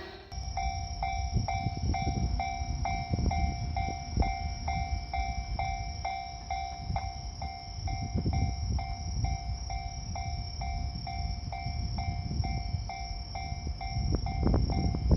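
Japanese railway level-crossing warning bell ringing steadily, just under two dings a second, over the low rumble and wheel clatter of a passing train.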